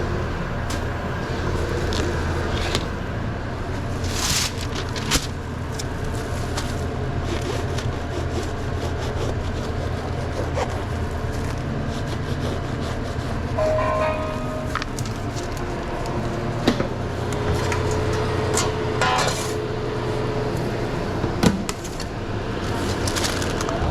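Steady hum of sandwich-shop kitchen equipment, with scattered clicks, knocks and rustles from sandwich making. A short tone sounds about halfway through, and a steadier tone lasts about three seconds a little later.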